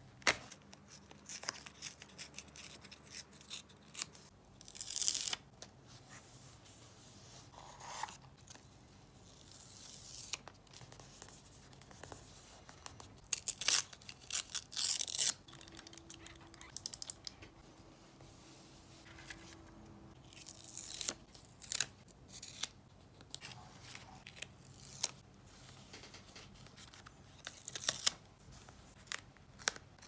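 Close-miked scrapbooking paper work: paper tearing and rustling in several bursts of a second or two, with sharp clicks and taps scattered between.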